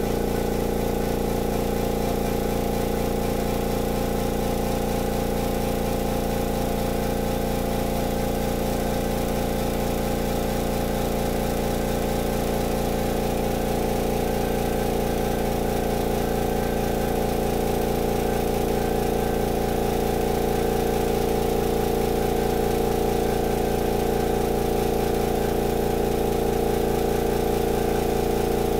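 Makita MAC2400 air compressor's oil-lubricated pump running steadily, filling its tank as the pressure climbs toward cut-out; a steady mechanical hum that grows slightly louder in the second half.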